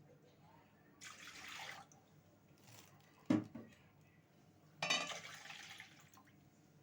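Milk being poured into a pot in two short pours, about a second in and again near five seconds, with a light knock of a cup or utensil in between.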